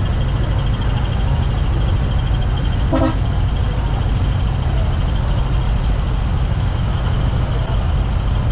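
Large diesel trucks idling with a steady low rumble, and a short horn toot about three seconds in. A steady high pulsing tone runs alongside.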